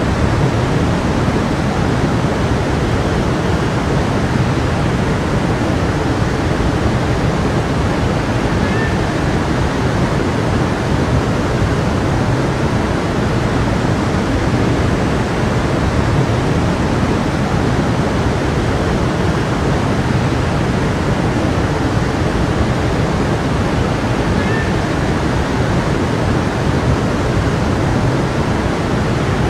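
A stream flowing: a steady, unbroken rush of water.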